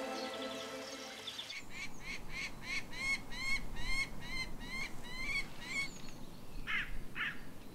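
Soft music fades out in the first second and a half, then a peregrine falcon calls a steady series of short rising notes, about three a second, for some four seconds. Near the end two short, falling bird calls follow.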